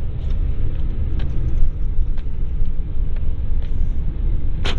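A four-wheel-drive vehicle running and rumbling over rough, snowy ground, heard from on board, with a few knocks and rattles, the loudest near the end.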